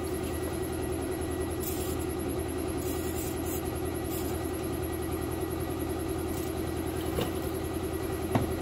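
Air compressor running with a steady drone, with a few faint light clicks of hand work.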